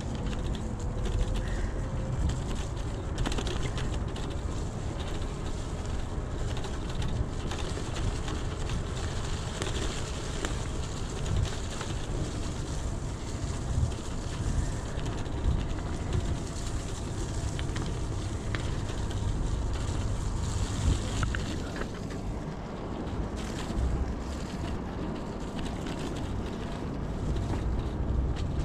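Wind buffeting the microphone over the rolling and rattling of an e-bike riding along a rough grass-and-dirt towpath, with scattered small clicks.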